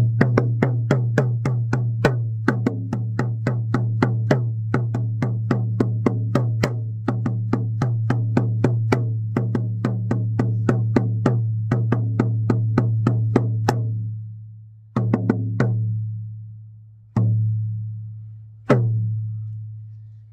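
Handmade shamanic frame drum beaten in a steady pulse of about three strikes a second, each ringing with a deep boom. About fourteen seconds in the beat slows to a few single strikes, each left to ring out and fade.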